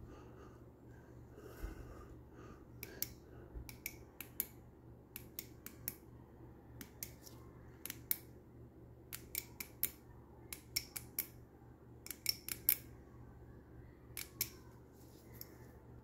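Many sharp, irregular clicks and ticks, some in quick clusters, as a polycarbonate lightsaber blade and its aluminium hilt are handled and fitted together by gloved hands and the hilt is set on its acrylic stand. A faint steady low hum runs underneath.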